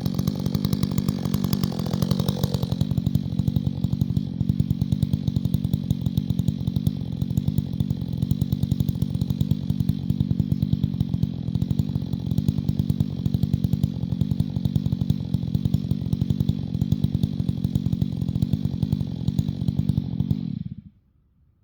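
Chainsaw engine running steadily at a constant pitch, then stopping abruptly about twenty seconds in.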